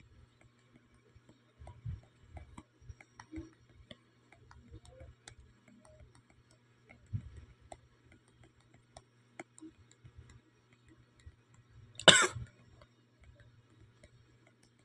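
Faint scattered ticks and taps over a steady low hum. About twelve seconds in, a person coughs once, loudly.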